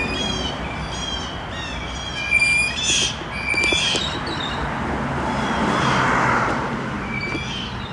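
Small birds chirping in quick repeated phrases, over the noise of a road vehicle that swells to its loudest about six seconds in and then fades.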